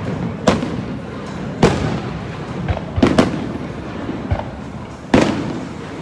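An aerial fireworks display: shells bursting overhead in an irregular series of loud bangs, about five strong ones, with a low rumble carrying on between them. The loudest bang comes about five seconds in.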